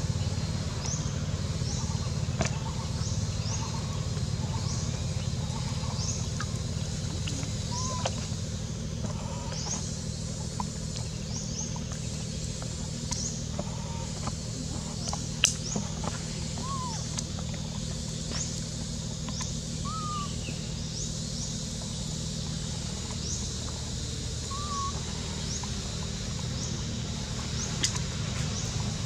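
Outdoor ambience: a steady low rumble, a faint high chirp repeating about once a second, and a few short whistled calls, with a sharp click about halfway through.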